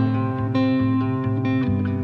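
Background music: plucked acoustic guitar, a gentle instrumental with notes changing every half second or so.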